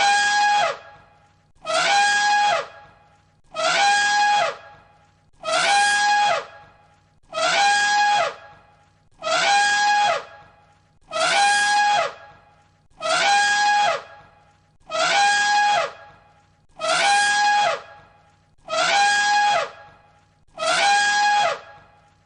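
Elephant trumpeting: the same one-second blaring call, a steady high note with a sharp start, repeated about every two seconds, around a dozen times.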